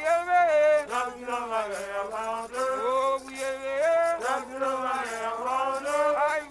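Background music of male voices singing a chant-like melody, with smooth, drawn-out rises and falls in pitch.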